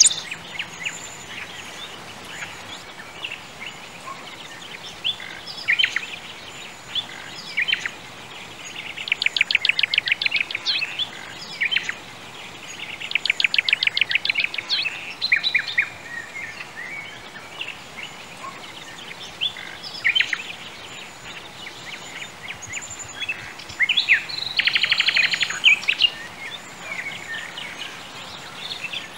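Birds singing: scattered chirps and whistles, with three bursts of rapid trilling about two seconds long each, over a steady faint background hiss.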